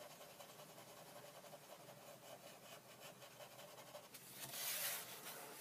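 2B graphite pencil scratching faintly on drawing paper in short, repeated shading strokes. It grows louder for about a second near the end.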